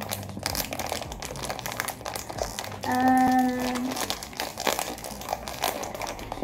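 Plastic biscuit wrapper crinkling and crackling as it is handled and opened, with a short, steady hummed vocal note about three seconds in.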